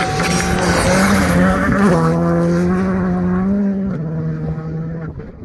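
Rally car passing at speed. The engine note drops in pitch in two steps, about two and four seconds in, and fades away near the end.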